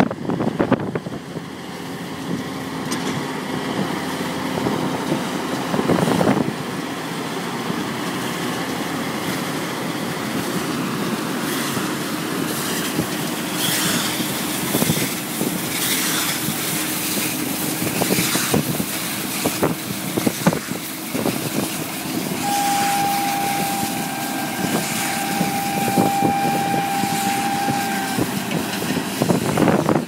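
John Deere tractor running steadily while pulling a McHale round baler that is picking up and baling haylage, with repeated knocks from the baler over the engine. In the last third a steady high tone sounds for about five seconds.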